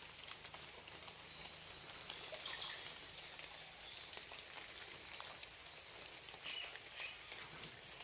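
Amazon rainforest birds calling faintly, short scattered chirps, over a steady high-pitched hum.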